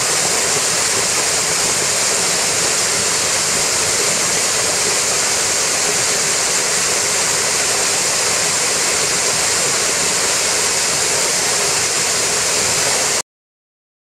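Waterfall crashing into a rock pool: a steady, even rush of falling water that cuts off suddenly about a second before the end.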